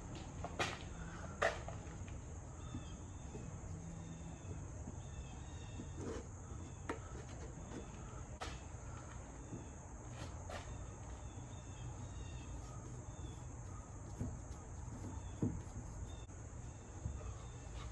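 Insects chirping steadily in the background, with a few scattered light clicks and knocks.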